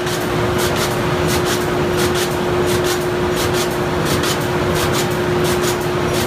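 Martin 1636 corrugated box machine running, its rollers feeding cardboard sheets through with a steady hum and noise. Sharp clicks, mostly in pairs, repeat about every 0.7 seconds.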